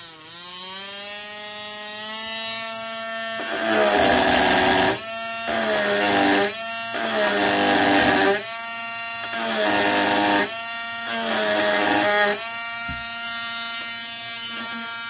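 Dremel Stylo rotary tool whining at speed as it spins up, then cutting into hardwood with a small carving bit. Five times, each for about a second, a rough grinding rises and the whine drops in pitch as the bit bites and slows. The bit is set too far out of the collet, which lets it run untrue.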